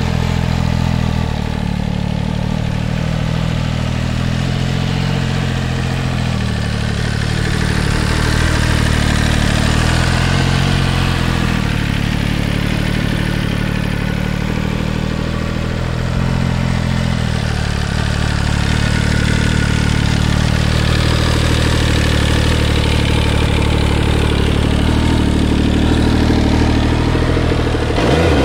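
MV Agusta Superveloce 800's three-cylinder engine idling steadily.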